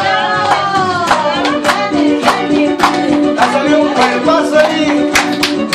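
Recorded song with singing and a steady beat playing loudly, with hand claps on the beat.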